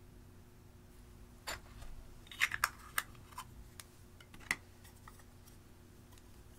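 Makeup cases and a spatula being handled: a scatter of sharp small clicks and taps from about a second and a half in to about four and a half seconds in, the loudest a little after two seconds and one more near four and a half, over a faint steady hum.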